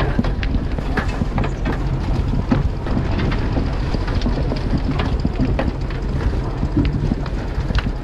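Massey Ferguson 711 potato harvester running, its moving web and chains clattering with soil and potatoes in a constant stream of clicks and knocks, over the low steady drone of the Massey Ferguson 35X tractor's engine.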